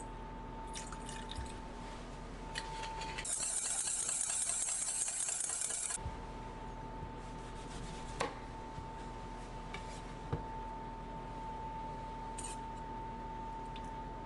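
A thin stream of clear liquid poured from a bottle into a stainless steel mixing bowl, splashing with a steady hiss for about three seconds. A wire whisk then clicks against the metal bowl twice. A faint steady tone runs underneath.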